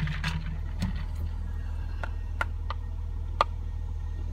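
Car engine idling, a steady low hum heard inside the cabin, with a handful of short sharp clicks as the plastic water bottle is handled.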